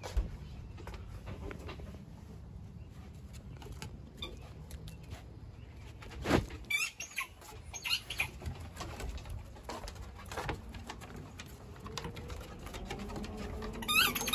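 Puppies' paws tapping and scraping on wooden deck boards, with one louder knock about six seconds in. Short high chirps come just after the knock and again at the end, and a smooth low coo runs through the last couple of seconds.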